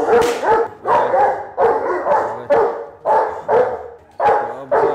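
Doberman Pinscher barking on command at a handler in protection training: a steady run of rapid, forceful barks, about two a second.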